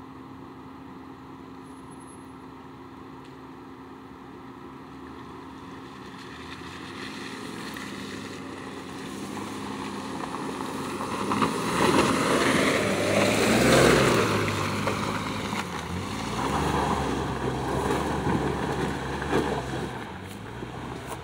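A Jeep's engine running under load as it climbs a steep, wet mud hill. It grows louder as it approaches, is loudest as it passes about two-thirds of the way through, then fades as it carries on up the hill.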